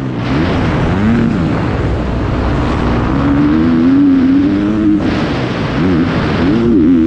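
Motocross bike engine revving and easing off as the rider works the throttle and gears, dropping and climbing in pitch about a second in and again near the end, with a steadier high run in between. Wind noise rushes over the microphone.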